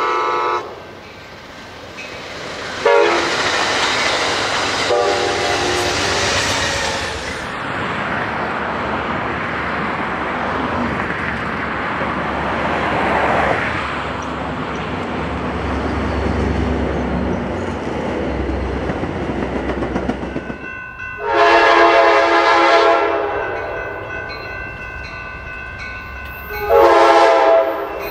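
Amtrak passenger trains sounding their locomotive air horns, each blast a steady multi-note chord. There is a short blast at the start, a longer one of a few seconds soon after, and two more blasts in the last third. Between the horn blasts comes the steady rumble and wheel noise of a passenger train rolling by.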